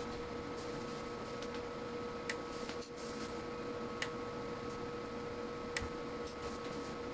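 Homemade 2 kV surge generator firing test pulses into a UNI-T UT-90A multimeter: three sharp snaps, each under two seconds apart, over a steady electrical whine.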